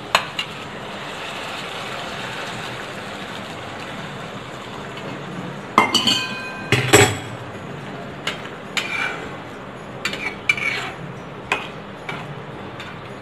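Hot water poured into a kadhai of fried masala, a steady rushing noise for about five seconds. Then a metal spatula stirs the curry, clinking and scraping against the pan in about a dozen irregular knocks.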